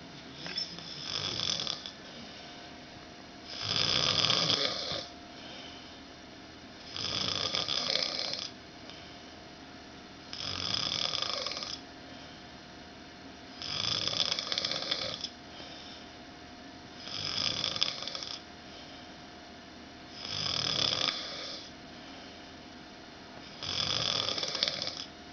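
A man snoring loudly: eight long, rasping snores, about one every three and a half seconds, each lasting about a second and a half.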